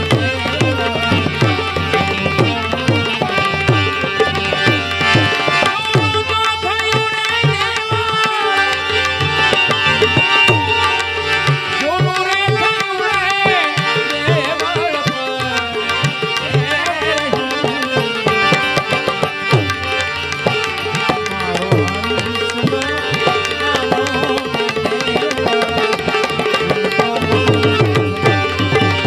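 Tabla playing a fast, steady rhythm under sustained melodic accompaniment: an instrumental passage of Gujarati Santvani devotional music.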